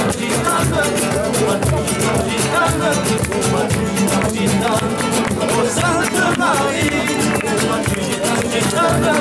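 Flamenco-style guitar strummed in a steady driving rhythm, with a voice singing a wavering melody over it.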